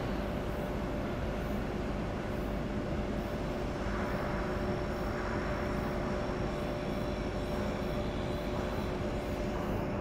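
Steady drone of shipyard machinery, with a few constant hum tones over an even rumble.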